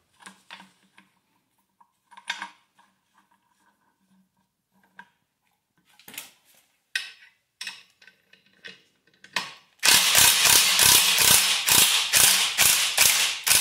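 Light metal clinks and knocks while a ball joint press and its socket are set in place. About ten seconds in, a cordless impact wrench starts hammering loudly and runs on, turning the press screw to push a destroyed swingarm bearing out of its bore.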